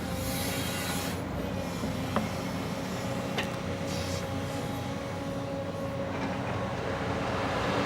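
JCB excavator's diesel engine running steadily under work, with a steady high tone over it and two sharp metallic clicks, about two and three and a half seconds in.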